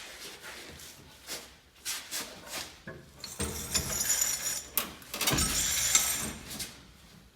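The truck's fuel tank, with gasoline still in it, being handled out from under the frame: scattered metallic clinks and knocks, then two longer rushing, scraping noises about three and a half and five and a half seconds in.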